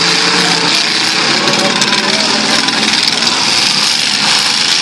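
Demolition derby cars' engines running loudly at once, their pitches wavering as they rev, over a dense steady din.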